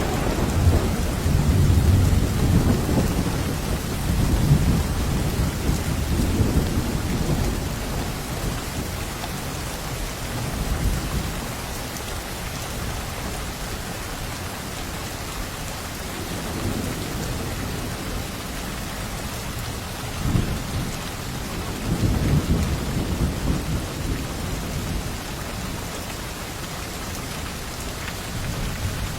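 Steady heavy rain with rolling thunder rumbling low in the first few seconds and again about two-thirds of the way through.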